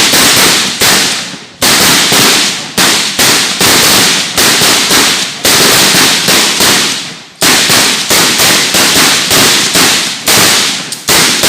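Rifle fire on a firing range: a rapid, irregular string of loud single shots, about two to three a second, each trailing off in echo, broken by two brief pauses.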